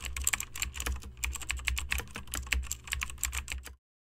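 Rapid computer-keyboard typing, many keystrokes a second, over a low steady hum. It is a typing sound effect laid over a caption being typed out, and it cuts off abruptly near the end.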